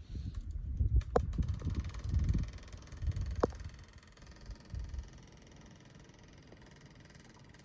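Gusty wind buffeting the microphone in irregular low thumps, with a couple of sharp clicks, settling to a faint steady hiss about five seconds in.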